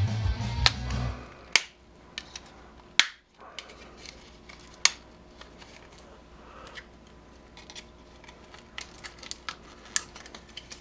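Background music that stops a little over a second in, then sharp clicks and clacks of tools and small metal parts being handled on a workbench: a few loud ones spaced out, and a quicker run of lighter clicks near the end.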